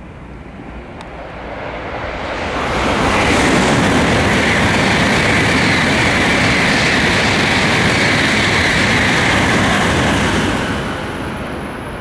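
An N700 series Shinkansen passing through the station at speed without stopping. The rush of its passing builds over the first three seconds, stays loud and steady for about seven seconds, then dies away near the end.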